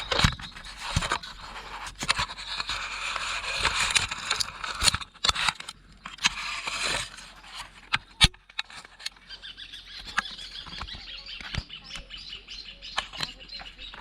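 A campfire of straw and branches catching, crackling with many sharp pops over a rustling hiss that is loudest in the first half and then dies down to scattered crackles.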